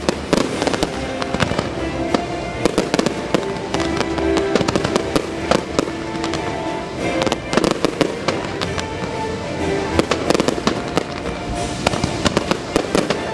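Fireworks going off in a dense, continuous volley of sharp bangs and crackling bursts, several a second, with the show's music playing steadily underneath.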